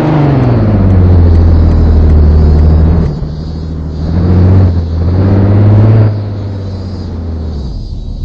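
A motor vehicle's engine revved up and held, then revved in two more short surges and dropping back; its engine note stops near the end.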